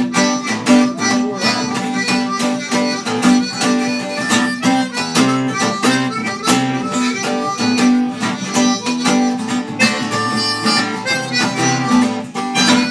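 Instrumental break in a live acoustic blues song: an acoustic guitar strummed in a steady rhythm while a harmonica plays held notes over it.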